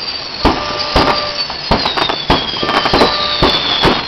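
Fireworks going off in a burning Christmas tree: irregular sharp cracks and pops, several a second, over a steady hiss. A high whistle runs through, slowly falling in pitch.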